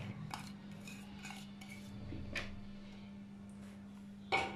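Sliced onion being scraped off a plate into a salad bowl: faint scrapes and a few light clicks of crockery, with a louder knock near the end.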